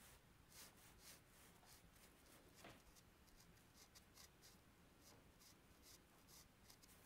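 Faint scratching of red chalk on textured drawing paper in short strokes, coming more quickly in the second half.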